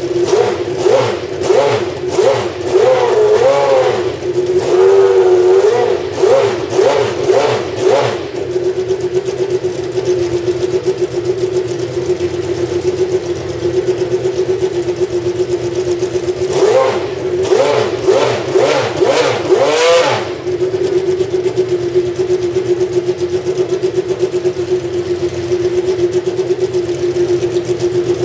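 The 1991 McLaren-Honda MP4/6's 3.5-litre Honda V12 running while stationary: a string of quick throttle blips for the first eight seconds or so, then a steady idle, another run of blips about two-thirds of the way through, and back to a steady idle.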